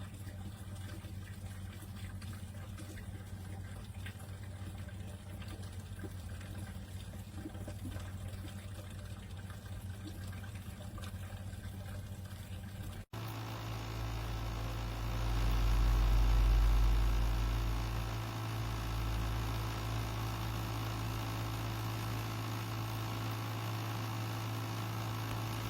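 FREESEA 40 W submersible fountain pump running, with a steady electric hum and the sound of moving water. Partway through, the sound cuts to a louder take, where a low rumble swells and fades shortly after the cut.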